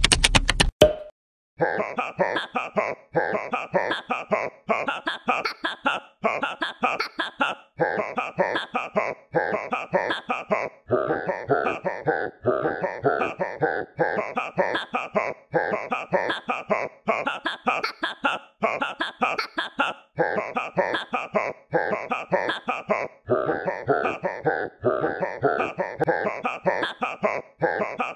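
Background music: a choppy track of short sounds repeating at an even pace, starting about a second in after a brief gap.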